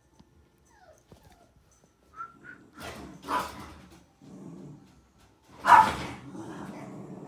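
American Cocker Spaniel puppy whining with a couple of short high whines, then barking twice, the second bark, about six seconds in, the loudest.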